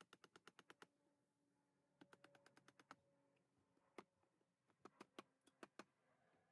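Faint rapid clicking from a hand tool cutting a notch in a pine board: a quick run of ticks in the first second, another run a couple of seconds in, then scattered single clicks.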